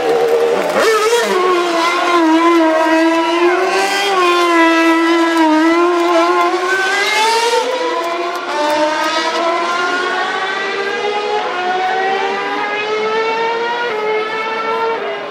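Mercedes Formula One car's V8 engine at high revs, its pitch swinging up and down with throttle and gear changes. Over the second half the pitch climbs steadily as the car accelerates away.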